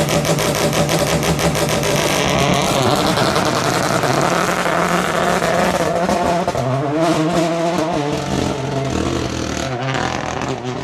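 Rally car engine running hard at high revs, its pitch rising and dropping several times as it accelerates and changes gear, fading out near the end.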